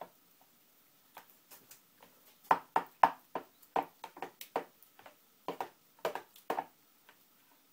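Metal spoon clinking and knocking against the side of a bowl while a thick sauce is stirred: a string of irregular short clicks, quiet at the start and end.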